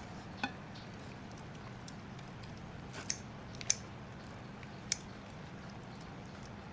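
A person chewing and biting into chicken: a few sharp clicks and smacks, about four spread through, over a steady low hum.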